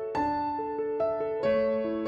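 Background music: a slow keyboard melody of single struck notes that ring and fade.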